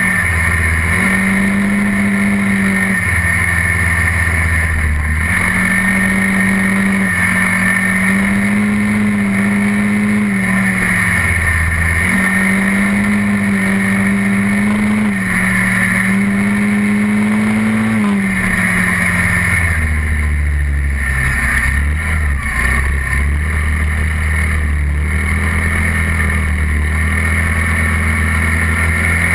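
SYM Quadlander 300 ATV engine running while riding, its pitch rising and falling every few seconds as the throttle opens and closes. About two-thirds of the way through it settles lower and rougher.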